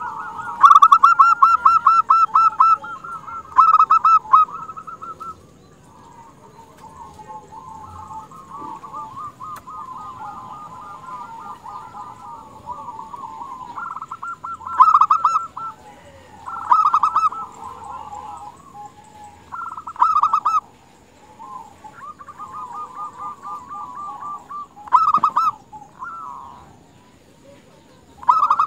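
Female zebra dove (perkutut) calling: long runs of fast, rolling coos, broken by louder stuttering bursts of about a second each, several times over. The loudest burst comes about a second in.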